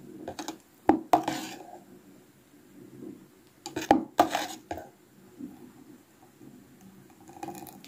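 A metal spoon knocking and scraping against the sides of a plastic blender beaker as thick homemade mayonnaise is stirred and scooped up: a few separate clinks, with a cluster of them about four seconds in.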